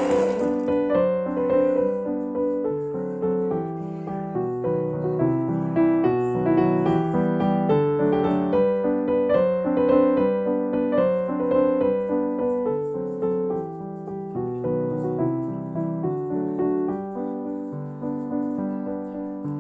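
Background piano music: a gentle, continuous run of single notes and chords.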